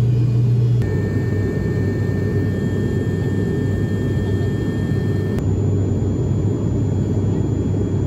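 Turboprop airliner's engines and propellers heard from inside the cabin: a loud, steady low hum over a rushing drone. The tone shifts abruptly about a second in and again a little past five seconds.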